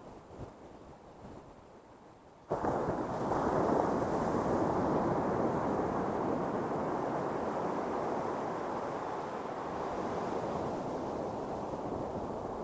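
Ocean surf breaking and washing on a beach: low at first, then a much louder, steady rush of surf that cuts in suddenly about two and a half seconds in.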